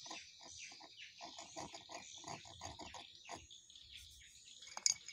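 A run of short animal calls, several a second, over a steady high hiss, with a sharp click near the end.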